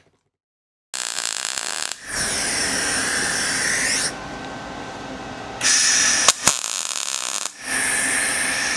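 Electric grinder working on the steel of a welded rear bar, starting about a second in and running in spells that rise and fall in level and pitch, with a few sharp clicks.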